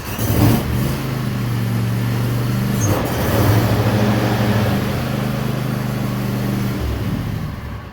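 Snapper 360z zero-turn mower engine running steadily, started up to test the newly fitted deck drive belt. It is a little louder around the middle and fades out near the end.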